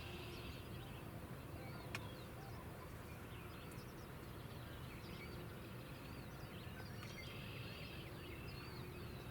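Quiet outdoor ambience: small birds chirping and trilling faintly over a steady low background noise, with a single sharp click about two seconds in.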